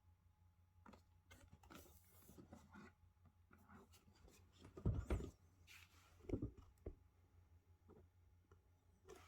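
Quiet handling noise: light rubbing and scattered small clicks, with soft knocks about five and six and a half seconds in.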